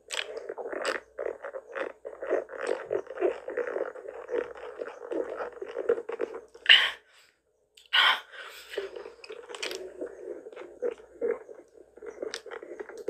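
Drink gurgling and slurping through a straw in a plastic cup, a rapid crackly bubbling. It breaks off sharply about seven seconds in, stops for about a second, then starts again.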